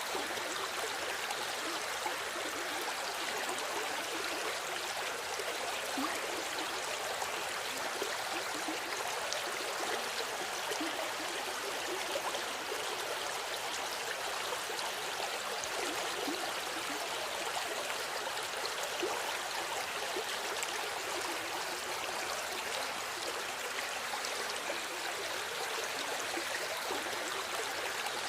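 River water flowing and babbling steadily over stones, a continuous rush with small splashes and gurgles throughout.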